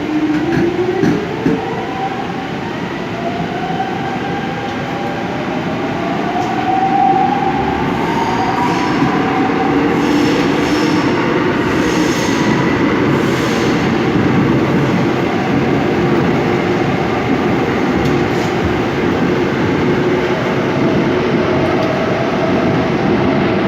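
Seoul Subway Line 5 train accelerating: its motor whine climbs in pitch over the first several seconds, then the train runs on at speed with steady wheel-on-rail noise.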